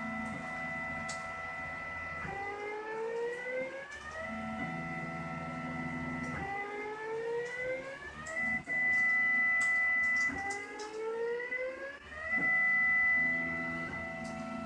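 Stepper motors of a da Vinci 3D printer whining as they run. Each cycle rises in pitch for about two seconds as the motors speed up, holds steady for about two, then drops, repeating about every four seconds; the steady stretches are loudest near the middle and end.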